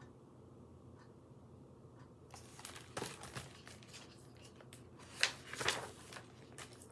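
Paper rustling and crinkling as a hardcover picture book's page is turned and the book handled, loudest about three seconds in and again near five seconds. Before that there is only a faint tick about once a second.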